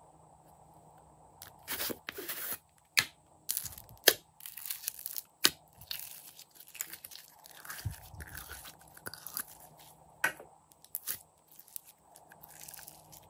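Store-bought slime pressed out of its plastic tub and squeezed by hand: wet, crackling squishes and pops with sharp clicks, starting about a second and a half in.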